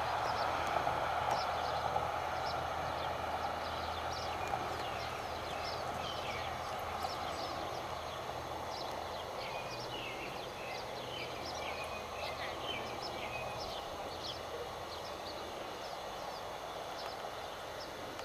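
Birds chirping, short scattered calls and falling notes that come thickest near the middle, over a steady rushing background noise that slowly fades.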